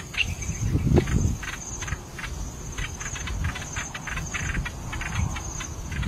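Insects trilling steadily at a high pitch, a cricket-like pulsing chorus, with many short chirps over it. A low rumble rises about a second in.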